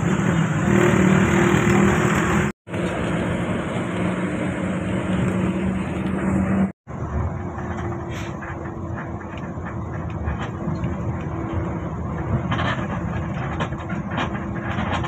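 Moving passenger bus heard from inside the cabin: a steady engine drone with road noise, broken by two brief drops to silence about two and a half and about seven seconds in. A few light knocks come near the end.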